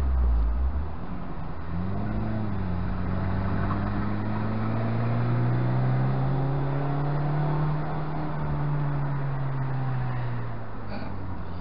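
Mazda MX-5's four-cylinder engine pulling the car up a winding mountain road. The engine note climbs slowly for several seconds, then falls away near the end, over steady tyre and wind noise.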